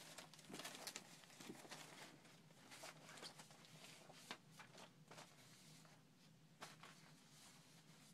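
Faint rustling and shuffling of old paper clippings and photographs being picked up and moved, with irregular soft clicks and brushes, over a steady low hum.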